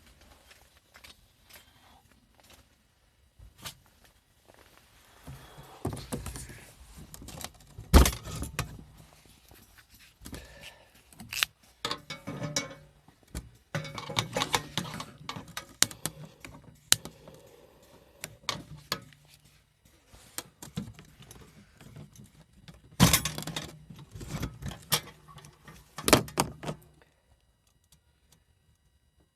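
Objects being handled: scattered clinks, knocks and rustling, with a sharp knock about 8 seconds in and another about 23 seconds in.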